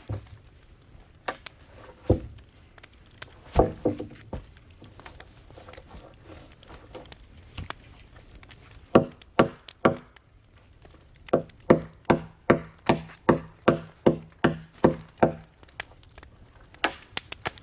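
Hard blows on wood: a few scattered knocks, then three heavy strikes, then a steady run of about ten strikes at two to three a second, each with a short hollow ring.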